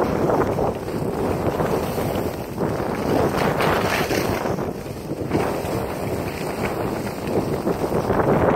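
Wind rushing over a phone's microphone during a downhill ski run, mixed with the hiss of skis sliding on snow; the rush rises and falls in swells.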